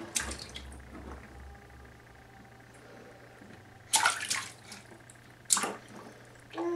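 Water splashing in a plastic baby bathtub as a toddler slaps the surface with her hands: three short bursts of splashing, the loudest about four seconds in and another a second and a half later.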